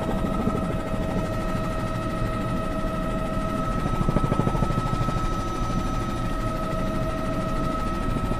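Helicopter engine and rotor noise heard from inside the cabin through the reporter's headset microphone: a steady low rumble under a constant high-pitched whine.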